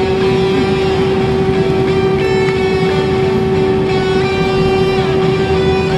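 Background music with guitar over the steady drone and whine of an Airbus A319's jet engines heard inside the cabin.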